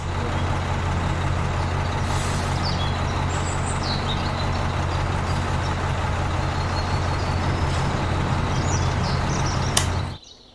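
A motor running steadily with a low hum and mechanical noise, like a heavy vehicle's engine. It starts abruptly and cuts off suddenly near the end.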